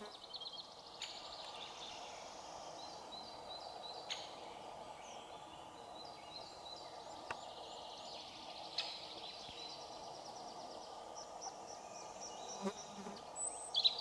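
Small songbirds singing in pine trees, strings of short high repeated notes and trills, over a steady hum of flying insects. A few faint clicks.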